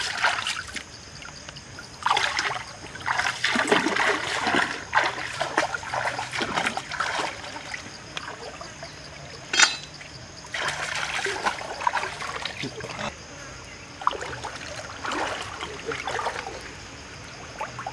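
Shallow stream water splashing and trickling in irregular bursts as someone moves about standing in it, with one sharp, louder hit about halfway through.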